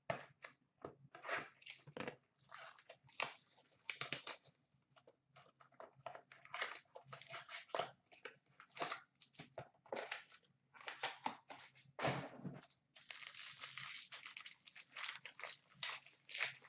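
Sealed box of hockey trading cards being unwrapped and opened by hand: plastic wrapping crinkling and tearing in short rustles, with a denser stretch of crinkling about thirteen seconds in.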